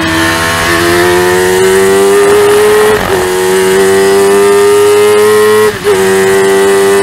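Spire GT3 sports racer's high-revving 1000cc motorcycle-derived engine pulling hard under acceleration, heard onboard. Its note climbs steadily and breaks briefly twice for quick upshifts, about three seconds in and again near six seconds.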